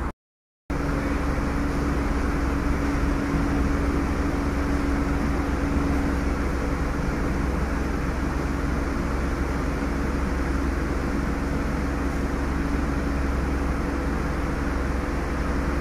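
Steady cabin noise inside a 2023 Ford Bronco running, a low rumble and hiss with a steady hum, after a brief silence at the start.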